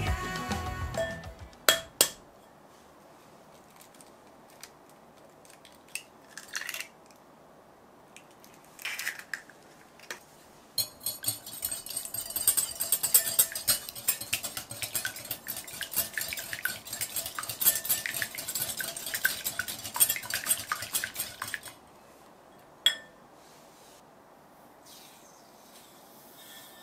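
A wire balloon whisk beats egg in a glass mixing bowl, clinking quickly and steadily against the glass for about ten seconds. Before that come a few separate sharp taps and knocks. Near the end there is a faint hiss as granulated sugar pours into the bowl.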